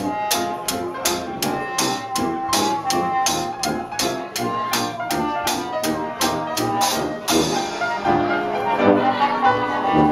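Small trad-jazz band playing live: tuba, another brass horn and piano over a washboard-and-cymbal beat of about four strokes a second. The washboard beat drops out about seven seconds in while the horns play on.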